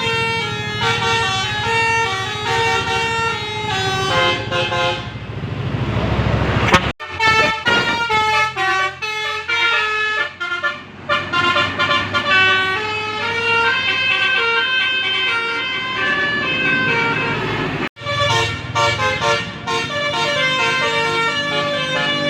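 Basuri 'telolet' multi-tone bus horns playing melodies, one note after another in quick changing pitches. The sound breaks off abruptly twice, about 7 and 18 seconds in, as one horn clip gives way to the next.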